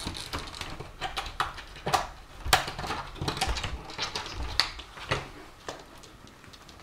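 Pet door flap and frame rattling and clattering as a fat cat squeezes through the tight opening: a run of irregular clicks and knocks that thins out near the end.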